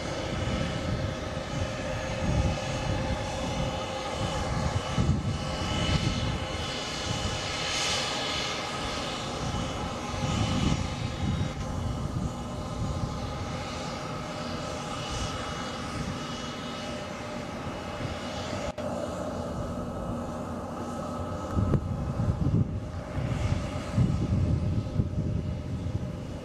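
Bombardier Global 7500 business jet's twin GE Passport turbofans running at low power as the jet taxis, a steady whine of several tones over a rushing hiss, with an uneven low rumble underneath.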